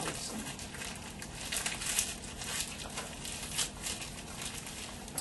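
Gift packaging rustling and crinkling as a present is unwrapped and handled: a run of short, uneven crackles, busiest in the middle.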